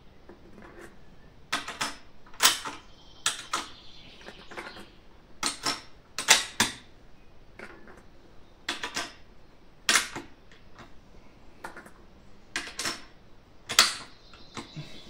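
Sharp metallic clicks and clacks, a dozen or so at uneven intervals, from handling a cartridge and working the bolt of a Mauser bolt-action rifle as it is loaded.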